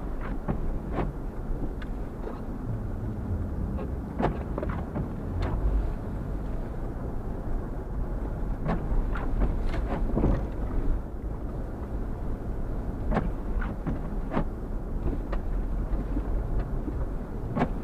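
Car driving slowly through deep, unplowed snow: a steady low rumble of engine and tyres, broken by irregular sharp knocks and thumps.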